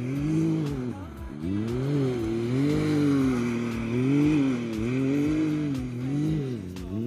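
Can-Am Maverick X3 X RC's turbocharged three-cylinder engine revving up and down over and over as the buggy spins on loose dirt. Music with a steady beat plays underneath.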